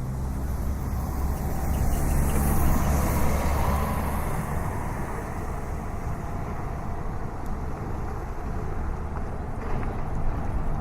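City street traffic. A motor vehicle passes close by, its low engine rumble and tyre hiss loudest two to three seconds in, then a steady wash of traffic noise.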